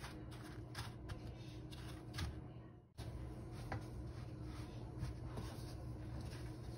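Faint rustling and scratching of dry breadcrumbs as eggplant slices are rolled and pressed into them by hand, over a low steady hum. The sound cuts out briefly about three seconds in.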